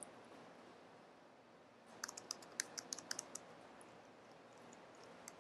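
Typing on a computer keyboard: a quick run of about a dozen keystrokes lasting about a second and a half, starting about two seconds in.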